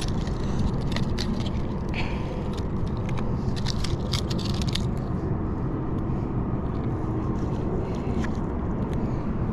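Steady low rumble of wind buffeting the microphone, with scattered light clicks and knocks from handling a bass and a fish scale at the water's edge, most of them around the middle.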